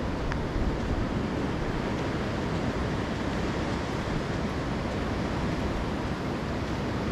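Surf washing onto a sandy beach, a steady rush of waves with wind rumbling on the microphone.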